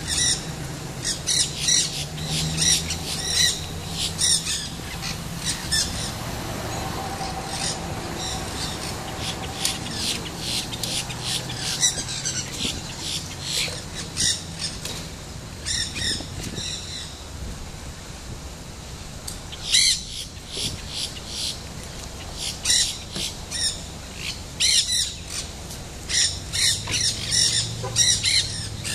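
Nanday parakeets (black-hooded parakeets) chattering: short, harsh, high calls given in rapid runs, in several bouts separated by pauses of a few seconds.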